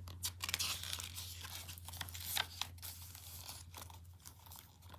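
Paper pages of a picture book rustling and crackling as they are handled and turned, in irregular small crinkles over a low steady hum.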